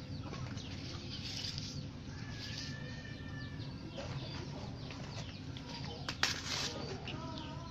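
Chickens clucking and birds chirping in the background, with fresh banana leaf rustling as it is handled and a short, sharp rustle about six seconds in.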